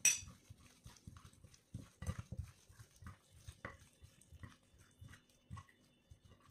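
Gloved hands rubbing seasoning into raw chicken drumsticks on a plate: soft, irregular wet pats and squelches of the meat being worked. A sharp click right at the start is the loudest sound.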